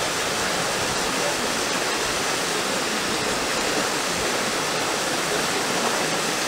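Steady rush of running water, an even noise with no separate splashes, in the elephants' pool.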